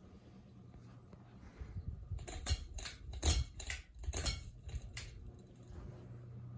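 Ceiling fan pull chain being pulled to change speed: a run of sharp metallic clicks and jingles about two seconds in, lasting about three seconds. Under them the fan motor hums faintly and steadily.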